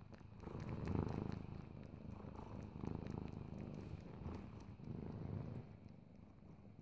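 Bengal cat purring steadily while it kneads and suckles a fringed blanket, the purr swelling and fading roughly every second or so.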